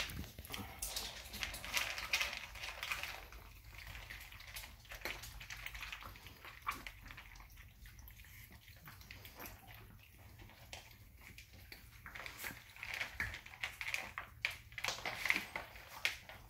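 Several puppies eating dry kibble from food dishes: irregular crunches and clicks of kibble and muzzles against the bowls.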